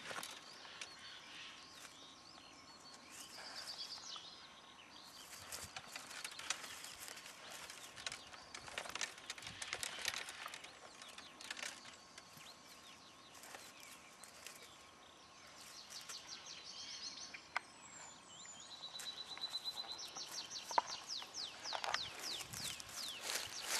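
Small songbirds singing, with rapid repeated trills and falling notes in the second half, over irregular rustling and clicking of twigs and grass as roe deer browse among saplings.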